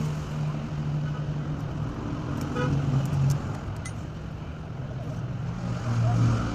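Motor vehicle engine running steadily amid road traffic noise, with a brief horn-like tone about two and a half seconds in.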